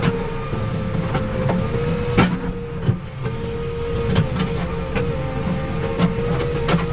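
Diesel engine of a backhoe loader running, a low rumble with a steady whine held over it and scattered clanks and knocks.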